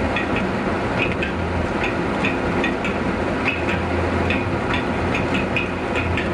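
A car driving on a city street, heard from inside the cabin: steady road and engine noise with a low hum, and short light ticks about two a second.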